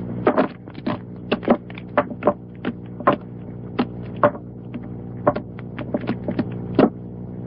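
Casino chips clicking against each other as they are worked in a player's hands: sharp, irregular clicks about two or three a second, over a steady low hum.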